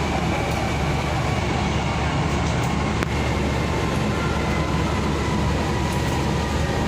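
Kochi Metro train running, heard from inside the passenger car: a steady rumble and hiss with a faint whine above it.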